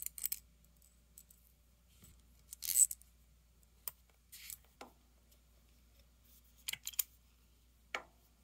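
Small metal tools and bolts clinking and clicking now and then as they are handled, with the loudest clink a little under three seconds in.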